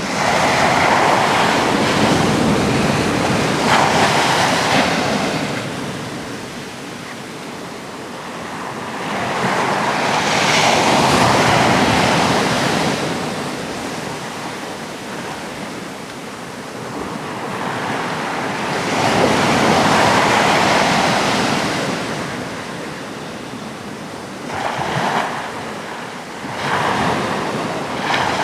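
Sea waves breaking and washing ashore, each surge swelling and fading roughly every nine seconds, with two shorter surges near the end.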